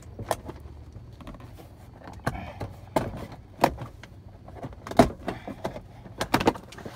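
Plastic trim clips of a 1997 Buick Regal GS door panel snapping and creaking as the panel is pried and peeled away from the door: a series of sharp separate clicks and pops, the loudest about five seconds in and a quick few near the end.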